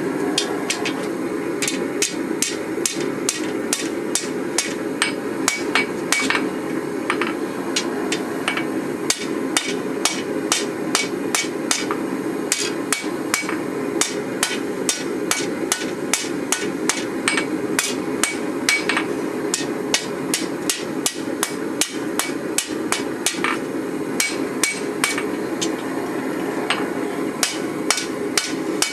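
Hand hammer striking hot steel on an anvil, forging a Japanese short-sword blade, at about two blows a second. Beneath the blows runs a steady low rushing noise.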